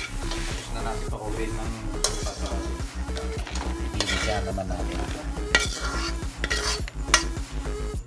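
A metal spoon scraping and clinking against a metal pan as cooked beetles are scooped out of it, with repeated sharp scrapes.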